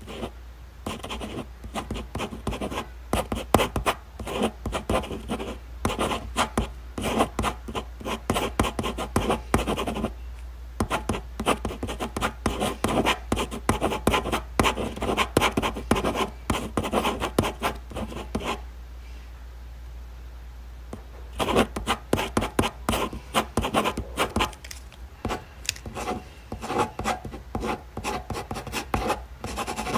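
Ballpoint pen writing on paper in quick scratching strokes, pausing briefly about ten seconds in and again for a few seconds past the middle, over a steady low hum.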